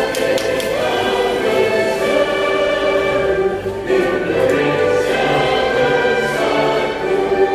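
Music with a choir singing long, held notes.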